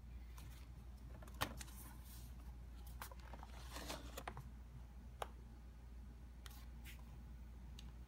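Scattered light plastic clicks and knocks as an IBM ThinkPad 701c laptop is handled by hand. The sharpest come about a second and a half in and again about five seconds in, with a small cluster in between.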